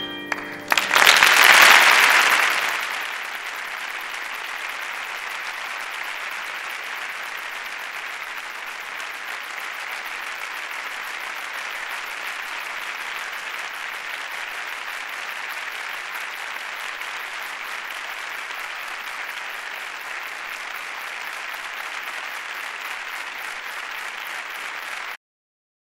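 Audience applauding: a loud surge of clapping about a second in settles into steady applause, which cuts off abruptly near the end.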